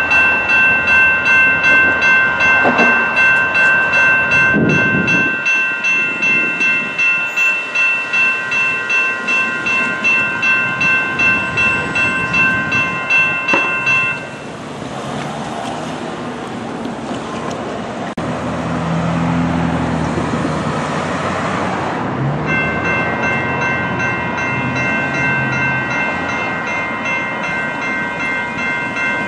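Electronic railroad crossing bell ringing in quick, even strokes, about two a second. It stops about halfway through, leaving several seconds of road traffic noise, and then rings again for the last several seconds.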